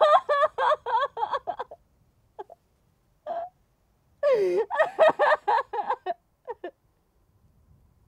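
A high-pitched voice making quick rhythmic vocal bursts, not words, in two runs of about a second and a half each, with a couple of short breaths between.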